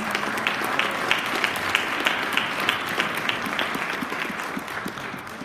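Audience applauding, with one pair of hands clapping close and steady at about three claps a second over the crowd's applause. The applause fades away near the end.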